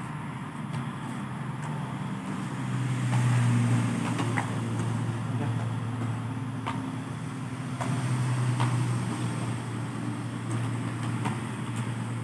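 Highway traffic going by: a low drone that swells as vehicles pass, about three seconds in and again around eight seconds. Light clicks of plastic food containers being handled sound over it.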